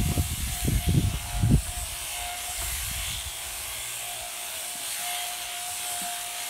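Hanging-motor electric sheep shears running steadily, a thin hum over the hiss of the cutters going through fleece. There are a few low thumps in the first second and a half.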